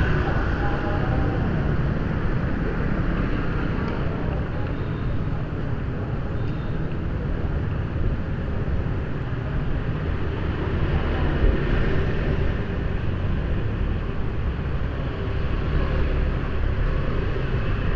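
Steady city street traffic noise: a continuous low rumble of passing motorbikes and cars, with no single event standing out.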